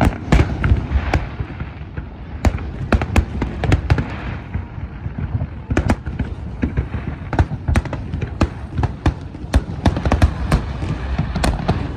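Fireworks display: a rapid, irregular run of sharp bangs and cracks, several a second, over a continuous low rumble.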